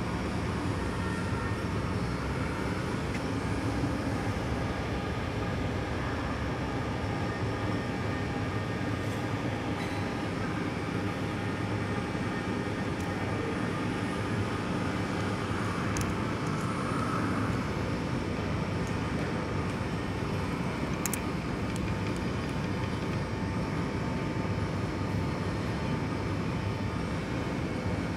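Metal lathe running steadily with an even mechanical hum and a faint steady whine, with a few light clicks around sixteen and twenty-one seconds in.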